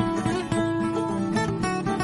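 Background music led by plucked guitar, one note quickly following another.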